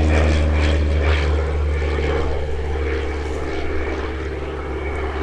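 Mudry CAP 10B aerobatic light plane's four-cylinder Lycoming piston engine and propeller droning steadily in flight, fading slowly as the plane flies away.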